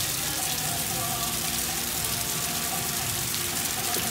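Heavy rain pouring onto a paved parking lot and parked cars: a steady, even hiss of falling water and splashing.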